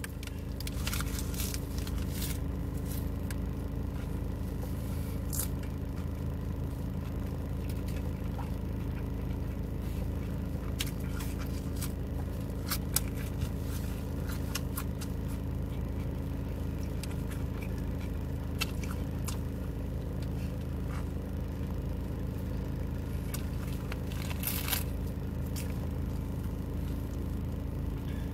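Close-up chewing of a crusty bread chicken sandwich, with scattered crunches and crackles, over a steady low hum inside a car.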